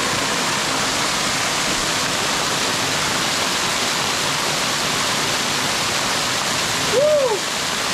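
Waterfall water rushing steadily right beside the path. About seven seconds in, a short pitched call rises and falls over it.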